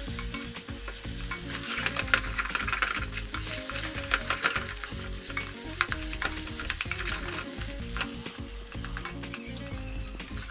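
Spatula stirring and scraping mashed boiled potatoes around a hot oiled pan, with many quick scrapes and knocks against the pan over a light frying sizzle.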